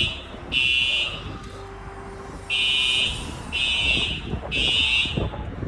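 An electronic alarm sounding a run of short, high beeps about once a second, with a longer pause after the first two.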